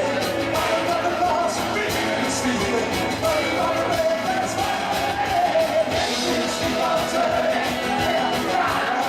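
Rock band playing, with singing over the music.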